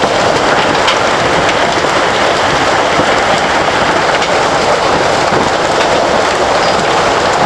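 Heavy hail coming down with rain in a loud, dense, steady rush, with many sharp ticks of hailstones striking hard surfaces.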